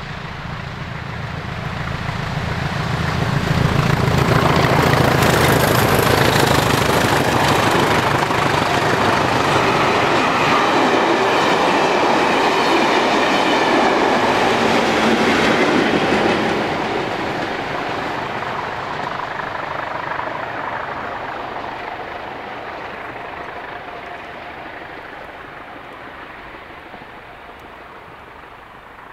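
A pair of Class 20 diesel locomotives, with English Electric eight-cylinder engines, work hard up a gradient; their low engine drone grows as they approach. It gives way to the loud rush and wheel clatter of the coaches passing, and after about sixteen seconds the train fades steadily into the distance.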